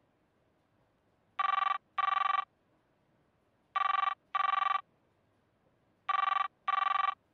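Telephone ringing in a double-ring pattern, with three pairs of short rings a little over two seconds apart. It is the ringback of an outgoing call that has not yet been answered.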